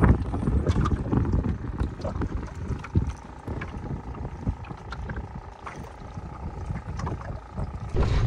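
Wind rumbling on the microphone and water lapping around a small boat, with a few light knocks.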